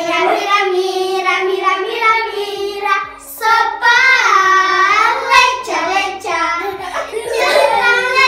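Group of young children singing a song together, their voices loud and a little echoing off bare concrete walls, with soft rhythmic thumps underneath from about two seconds in.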